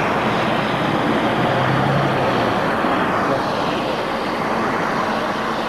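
Gas torch flame hissing steadily, heating steel fingers red so they can be bent, with a faint hum underneath.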